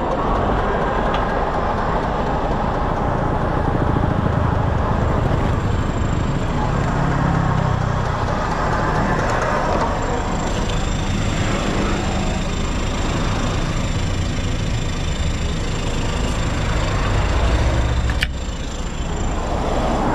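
Tow truck's engine idling with a steady low rumble. About 18 seconds in it breaks off sharply and a slightly quieter idle follows.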